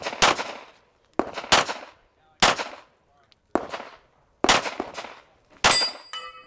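Pistol shots fired one at a time during a USPSA practical-shooting stage: about seven shots, roughly a second apart, each with a short echo trailing off.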